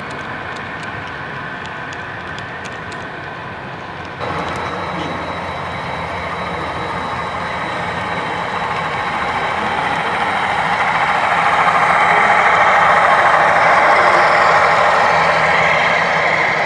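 For the first four seconds, HO scale model passenger cars roll along the track with irregular light ticks. After that, the sound of sound-equipped HO scale model diesel locomotives takes over: a CSX SD40-3 and two GE Evolution-series units running, pulling a stack train. Their engine sound grows louder as they pass close, about two-thirds of the way through.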